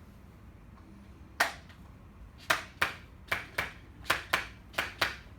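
Handheld chiropractic adjusting instrument firing: a single sharp click, then four quick pairs of clicks.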